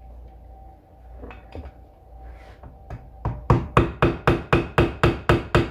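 Hammer striking a screwdriver held against the edge of an old rear main seal in an LS engine's rear cover, to bend the seal over and break it loose. A few light taps, then from about three seconds in a steady run of sharp metal strikes, about four a second.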